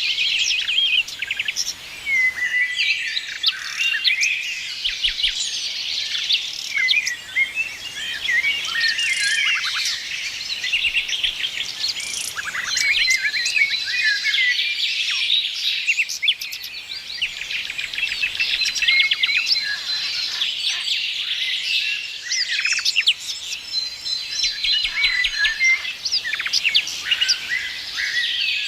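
Many songbirds chirping and singing at once: a dense chorus of overlapping quick chirps, trills and short whistles, with a few longer held whistle notes.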